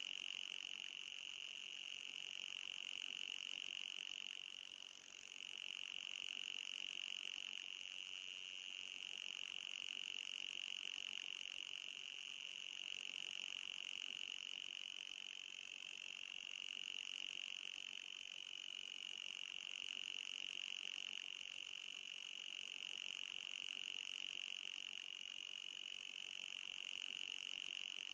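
Anti-mosquito repellent sound effect: a steady, high-pitched electronic tone with a fainter, higher tone above it, dipping briefly about five seconds in.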